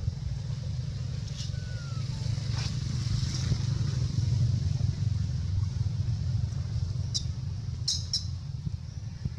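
Outdoor background: a steady low rumble, with a few brief high bird chirps, two of them close together near the end.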